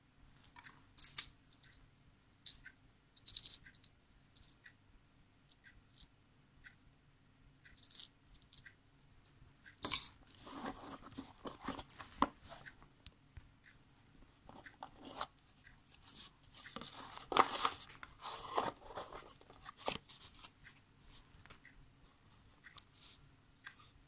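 Packaging being handled while a lighter gift box is opened: scattered sharp clicks and taps, then two spells of crinkly rustling, about ten seconds in and again a few seconds later.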